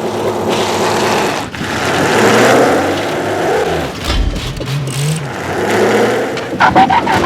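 Truck engine revved hard, its pitch climbing and dropping as it is gunned while the truck is held fast, with a heavy low thud about four seconds in.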